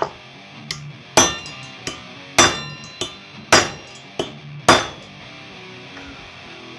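Hammer striking a steel drift set through an ATV wheel hub, knocking out the old wheel bearing: four hard, ringing metal blows about a second apart with lighter taps between them, stopping about five seconds in.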